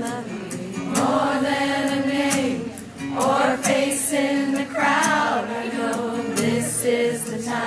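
Live pop-rock music: a male singer holds sung notes, in several phrases, over instrumental backing.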